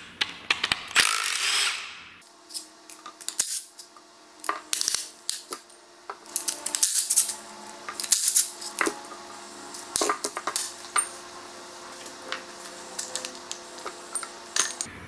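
Hand tools and steel parts clicking and clinking as the bearing-cap bolts and caps come off a Suzuki Sidekick differential carrier, with a short burst of rasping noise about a second in.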